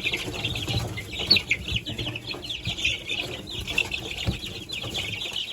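A brood of two-week-old chicks peeping continuously, many high, short, falling peeps overlapping at once, with a few soft knocks underneath.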